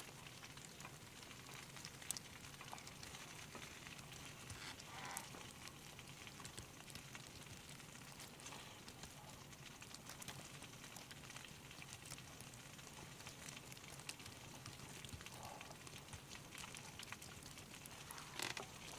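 Faint crackling of a wood fire, scattered sharp pops over a steady low hiss.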